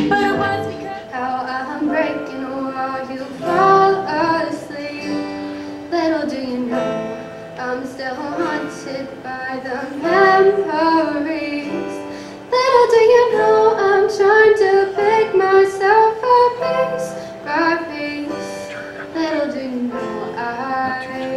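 Live song: a voice singing to acoustic guitar and digital piano, holding one long note about halfway through.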